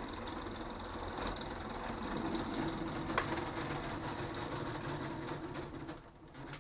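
Electric drill running steadily with a constant whine, boring out a hole in a switch plate. There is a sharp click about three seconds in, and the drill winds down and stops about six seconds in.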